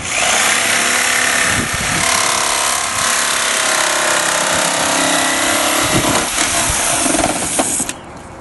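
Corded jigsaw cutting through a plastic car bumper cover along a template, running steadily and loudly, then stopping suddenly near the end.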